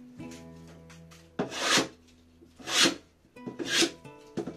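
Metal bench plane shaving a pine board by hand: about four hissing strokes roughly a second apart, starting about a second and a half in.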